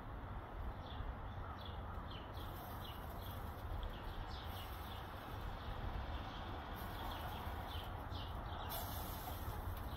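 A small bird chirping, a string of short high chirps about two a second, over a steady low outdoor rumble.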